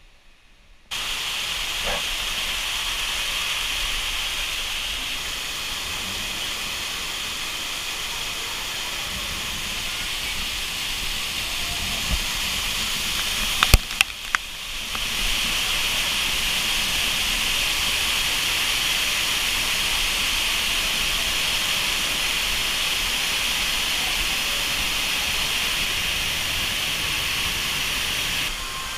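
Man-made waterfall curtain pouring close by, a steady loud rush of falling water and spray. It starts suddenly about a second in, and about halfway there are a few sharp clicks and a brief drop before the rush comes back.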